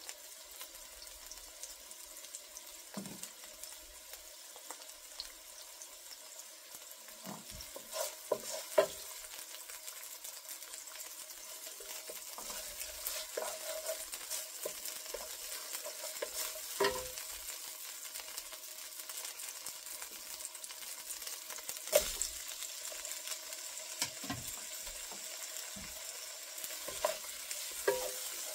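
Onions and ginger sizzling in oil in a nonstick wok, stirred with a wooden spatula that scrapes and knocks against the pan now and then. Near the end, chopped tomatoes are being stirred into the pan.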